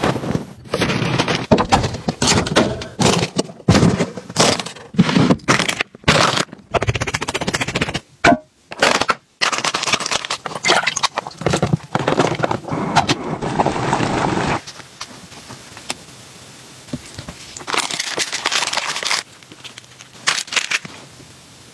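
Plastic food packaging crinkling and being cut open with scissors, amid crackling and scraping from food handling and preparation. The noises come thick and sharp for the first two-thirds, then turn quieter.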